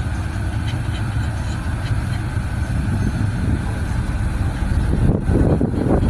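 Car running slowly, heard from inside the cabin: a steady low engine and road rumble that grows louder and more uneven about five seconds in.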